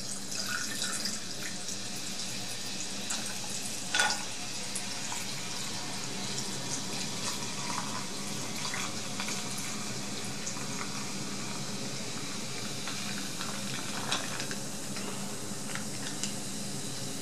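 Cola poured from a can over ice into a tall glass, fizzing and crackling steadily as the glass fills. There is a sharp click about four seconds in.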